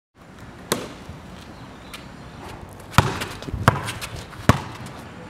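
A series of five sharp knocks at uneven intervals over a faint steady background, the loudest in the middle and near the end.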